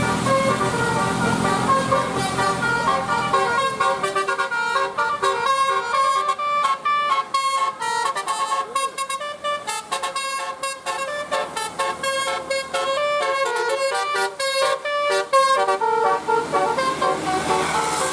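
Bus 'telolet basuri' multi-tone horn, a nine-note set of eighteen horn trumpets, playing a fast melody of short, stepped notes. A low engine rumble comes first; the melody starts about four seconds in and stops a couple of seconds before the end.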